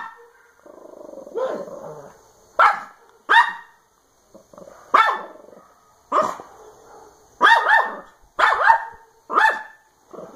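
A dog barking at a cordless drill, about ten sharp single barks, some in quick pairs, with a low growl about a second in.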